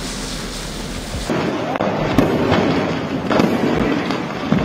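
A steady hiss of water spraying, then about a second in a burning stock of fireworks and firecrackers starts going off: continuous crackling broken by several louder bangs.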